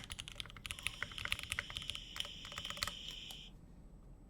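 Rapid typing on a keyboard, a quick run of key clicks that thins out to a few stray keystrokes about three and a half seconds in, with a thin high whine alongside the typing.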